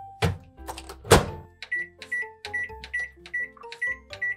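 Samsung microwave oven: the door is shut with a loud thud about a second in. Then comes a quick run of short high beeps, about four a second, as the time buttons are pressed to set the cooking time.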